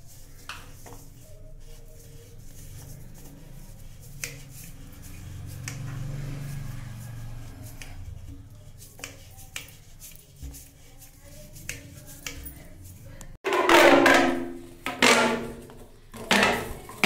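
Scattered light clicks and knocks of a plastic waste pipe and fittings being handled and fitted under a wash basin, over a low steady hum. Near the end the sound cuts off abruptly and a loud voice comes in.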